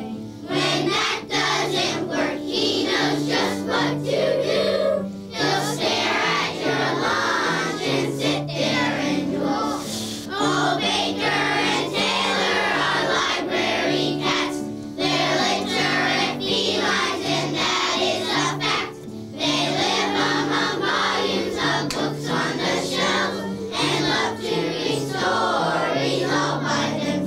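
A children's choir singing a song in unison over a musical accompaniment whose low notes change in steps, in phrases with short breaths between them.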